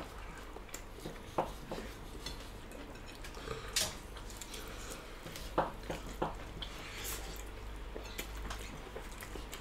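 Eating with the hands from ceramic plates: scattered soft clicks and taps of fingers and food against the plates, a few of them sharper.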